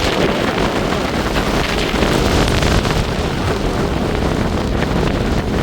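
Cyclone winds blowing hard across the microphone: a loud, steady rush with heavy low rumble from the gusts buffeting the mic.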